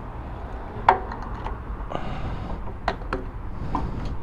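A self-service fuel pump being operated: a few sharp clicks and knocks, the loudest about a second in, over a steady low rumble.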